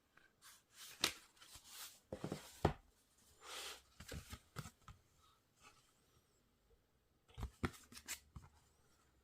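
Hands unboxing a Blu-ray limited-edition set: a string of short taps, clicks and brief rustles of card and plastic packaging, with a smoother sliding swish near the middle and a quick cluster of clicks near the end.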